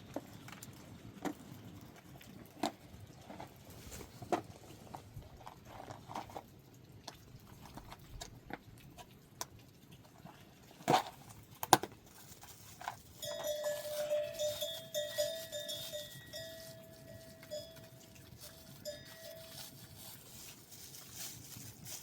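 Scattered small knocks and clicks of livestock moving, with two sharper knocks about eleven seconds in; from about thirteen seconds a livestock bell rings in quick, repeated clanks for several seconds.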